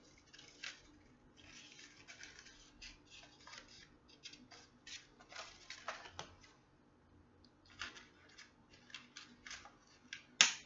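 Stiff construction paper rustling and crinkling in short, crisp bursts as a paper lantern and its handle strip are handled and bent into place, with one loud sharp click near the end.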